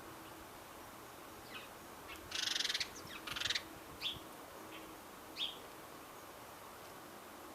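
Wild songbirds calling: a few short, sharp chirps, and two harsh, raspy calls a little over two seconds in.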